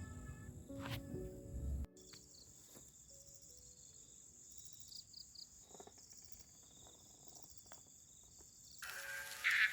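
Background music cuts off about two seconds in, leaving faint insect chirring: a steady high trill with short repeated chirps. Music comes back near the end.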